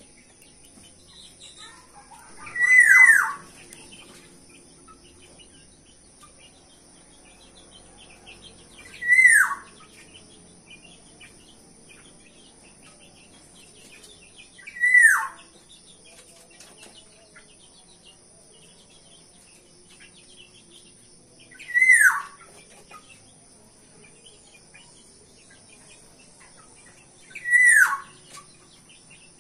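Black-naped oriole (kepodang) calling: five loud, clear calls about six seconds apart, each a short whistle sliding down in pitch. A faint steady high hiss runs under them.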